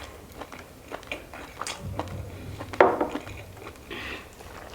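Close-miked eating sounds from a meal of chicken curry with rice: chewing and small mouth clicks, with a louder single knock about three seconds in.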